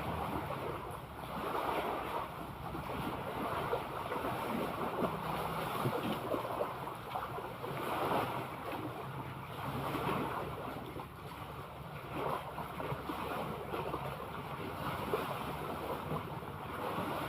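Sea water washing and splashing, with wind buffeting the microphone; the wash swells and eases every couple of seconds.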